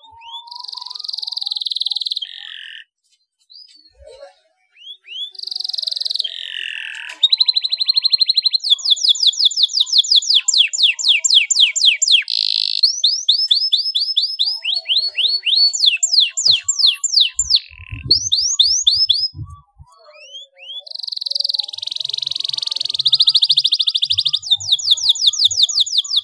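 Domestic canary singing: fast rolling trills of rapidly repeated down-slurred notes, broken by short pauses and a few longer whistled notes. Some soft low knocks come in the second half.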